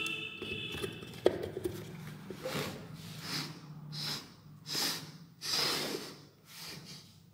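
Handling noise from a small plywood speaker box being adjusted by hand: a brief squeak at the start and a sharp knock about a second in. Then comes a run of short scraping rubs, about one a second.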